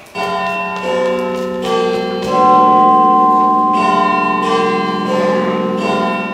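Large bells chiming: a series of struck notes at different pitches, about one every second or less, each ringing on and overlapping the next, fading near the end.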